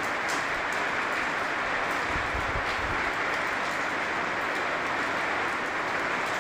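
Steady rain falling, an even hiss without a break, with a short low rumble about two seconds in.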